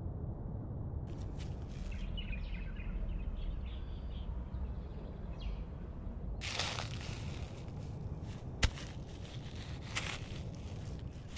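Low outdoor wind rumble on a camera-trap microphone with faint bird chirps. About six seconds in, the sound changes abruptly to rustling and crackling with sharp clicks.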